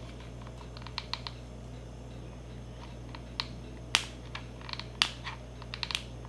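Scattered small clicks and taps from a mini hot glue gun being squeezed and a dried twig stem being handled while hot glue goes on it, with two sharper clicks about four and five seconds in, over a low steady hum.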